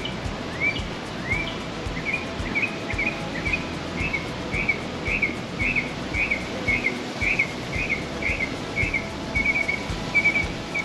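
A songbird singing a long run of repeated whistled notes, about two a second, turning into quicker clipped notes near the end, over steady outdoor background noise.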